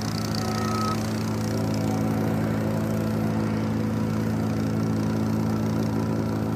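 Small gasoline engine of a vibratory plate compactor running steadily as it is pushed over a runway repair patch, compacting the fill, with a constant low hum.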